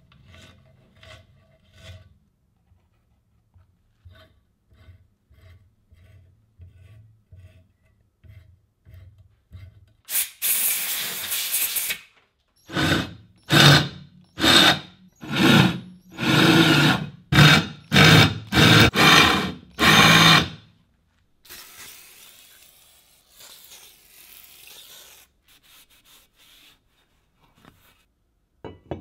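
A hand countersink scrapes the edge of a hole in the cast metal of a drill stand, in light, evenly repeated strokes. About ten seconds in, a power drill with a countersink bit chamfers the holes of the metal base plate: a steady two-second run, then about ten short, loud bursts.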